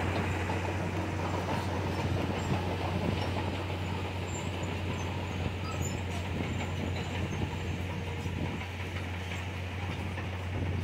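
Komatsu D31PX crawler bulldozer's diesel engine running steadily as the machine works, a low drone with a light clatter from the tracks.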